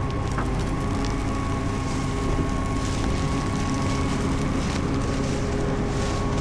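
Large farm machine's diesel engine running steadily, a low drone with a few held humming tones from the engine and drives over it.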